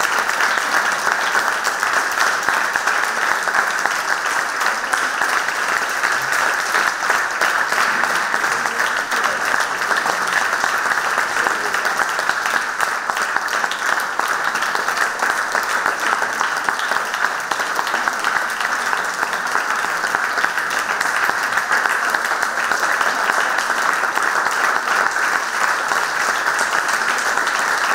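A concert audience applauding steadily, a dense, even clapping that holds at one level.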